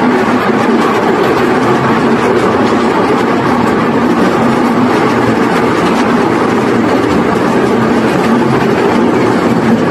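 Miniature ride-on tourist train running steadily along its track, heard from one of its cars.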